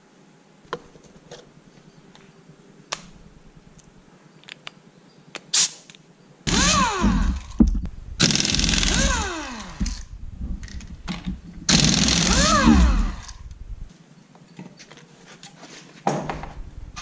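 Pneumatic impact wrench hammering lug nuts loose and spinning them off a truck wheel: three bursts of one to two seconds, starting about six seconds in, their pitch sliding up and down as the air motor speeds and slows.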